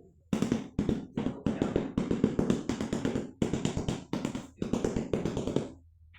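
Rapid tapping on a hard surface in about ten short bursts, each a quick run of strikes.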